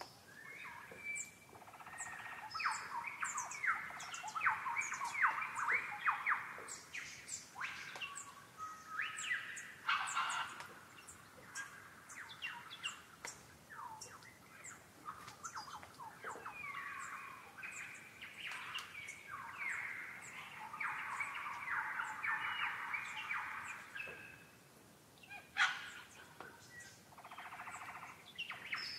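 Several wild birds singing and calling together: a busy mix of quick chirps and warbling phrases, densest a couple of seconds in and again around twenty seconds in, with quieter gaps between.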